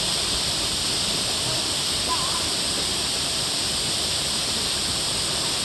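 Running water of a mountain stream: a steady, unbroken rushing hiss, brightest in the high range.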